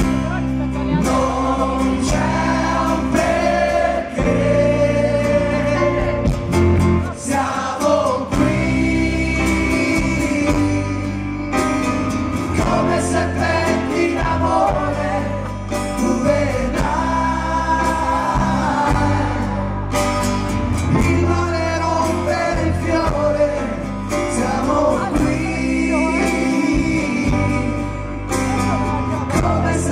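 Live rock band playing through a concert PA: strummed acoustic guitar, drums, bass and electric guitar, with singing over the top.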